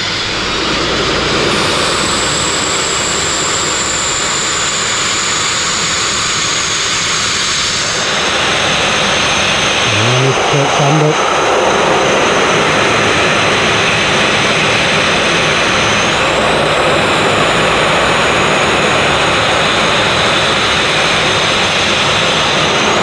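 A No. 850 sandblasting nozzle with a half-inch bore blasting abrasive against a narrowboat's steel hull to strip the old blacking. It makes a loud steady rush with a thin high whistle over it, and the rush grows fuller about eight seconds in.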